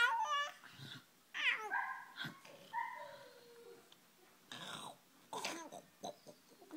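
Baby squealing and babbling in a string of short, high-pitched sounds whose pitch slides up and down, while it gums an adult's face.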